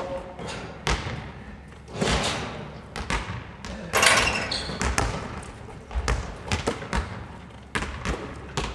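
Basketballs bouncing on a wooden sports-hall court, a string of sharp thuds at irregular spacing that echo in the large hall.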